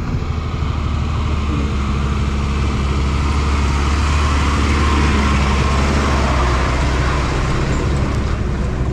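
Yamaha MT-15's 155 cc single-cylinder engine running steadily at low speed, under a broad rush of wind and road noise that grows a little louder in the middle.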